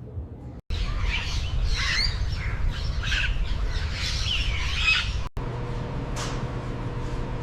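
Several birds squawking and chirping in quick, overlapping calls, starting suddenly under a second in and cutting off abruptly about five seconds in.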